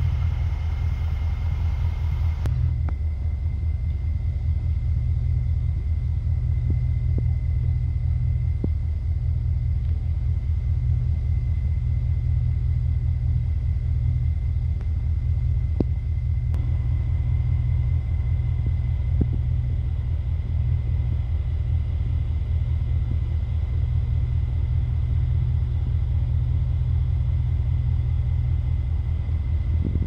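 Steady, low engine rumble with an even pulse, with a thin steady high whine over it and a few faint knocks.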